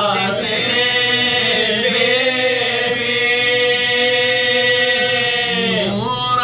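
Men's voices chanting a marsiya, an Urdu elegy for Imam Husain, holding one long drawn-out note that dips in pitch and rises again near the end.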